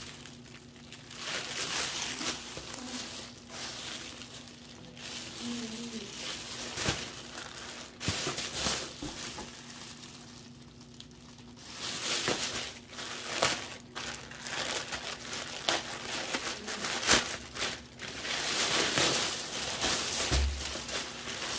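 Clear polyethylene packaging bag crinkling in irregular stretches as it is handled and pulled open, with quieter gaps between. A short low thump near the end.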